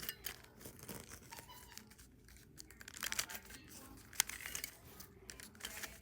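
Faint scattered clicks and rustling from a Rubik's cube being handled, with one sharper click about four seconds in.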